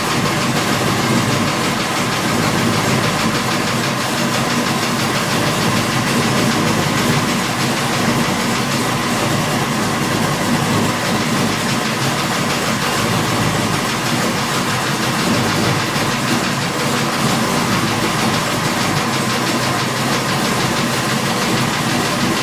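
540 cubic-inch big-block Chevrolet V8 running steadily.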